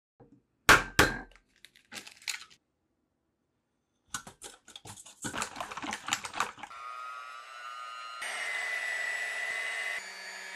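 A whisk clattering rapidly against a stainless-steel bowl while beating egg yolks, after a couple of sharp knocks. Then an electric hand mixer whipping batter, a steady motor whine that steps up in pitch and loudness partway through.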